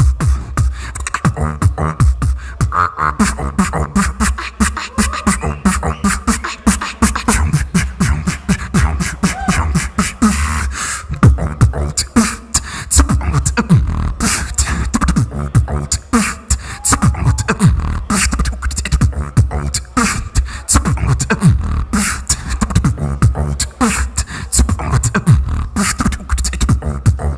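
Solo beatboxing into a cupped handheld microphone: rapid mouth-made drum hits and clicks packed closely together over a constant deep bass, with a few short pitched tones.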